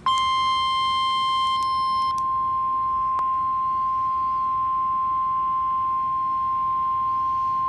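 NOAA Weather Radio warning alarm tone: a single steady 1050 Hz beep held without a break, announcing a severe thunderstorm warning. There is a faint click about three seconds in.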